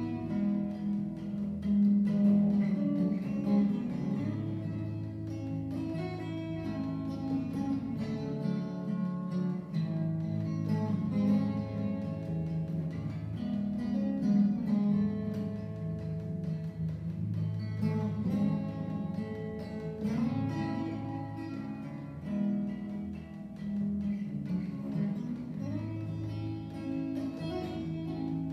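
Solo acoustic steel-string guitar, fingerpicked: a melody played over low bass notes, with no singing.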